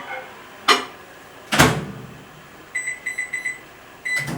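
IFB microwave oven being worked: three sharp knocks, then a quick run of four short high beeps about three seconds in, and one more beep with a click near the end.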